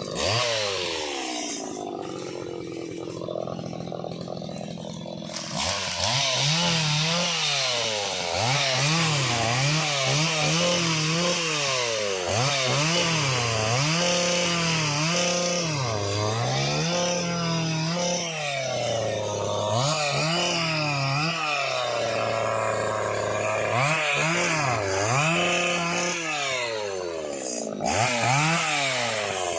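Stihl motorised pole pruner's small engine running, first at a lower steady speed, then revving up and dropping back again and again, about once a second or two, as the chain saws through oil palm fronds.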